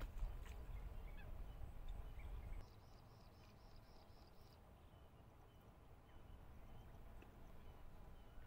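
Quiet lakeside ambience: a low rumble for the first two and a half seconds, then a quick, evenly spaced run of about eight high chirps from a bird.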